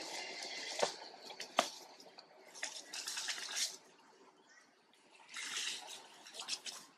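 Dry leaves and grass rustling and crackling in bursts as young long-tailed macaques wrestle and scamper over the leaf litter, with two sharp clicks about a second in.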